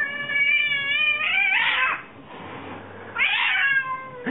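Tabby cat yowling at its own reflection in a mirror: two long drawn-out calls, the first held and rising slightly before turning harsh, the second starting harsh and falling in pitch.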